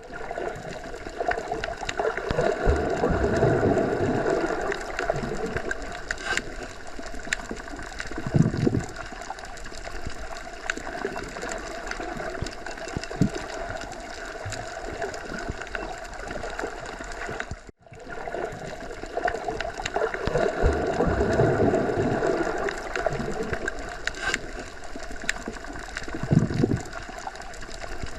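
Underwater ambience: a steady watery hiss with low swelling surges and scattered small clicks. It cuts out for an instant about 18 seconds in, then the same stretch starts over as a loop.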